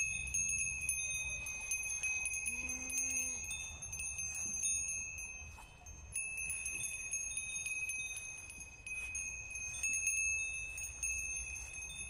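Many goat neck bells tinkling and clanking together as the herd grazes and moves. A short low goat bleat comes through about two and a half seconds in.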